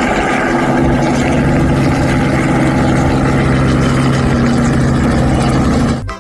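An engine running steadily at a constant pitch, starting and stopping abruptly.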